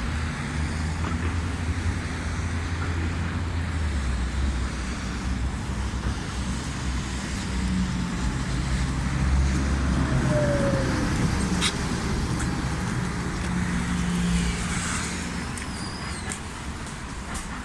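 Belkommunmash BKM-60102 tram in motion, heard on board: a steady low rumble with an electric drive hum whose pitch shifts, a short whine about ten seconds in, and a sharp click near the twelve-second mark.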